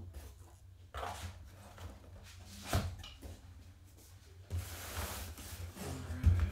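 Cardboard and table handling noises: a few scattered knocks and some rustling, then a heavy thump near the end as the sealed cardboard case is picked up off the table.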